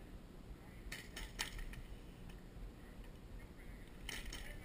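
Airsoft guns firing: scattered sharp clicks and snaps, a few about a second in and a quick cluster near the end, over a low wind rumble on the microphone.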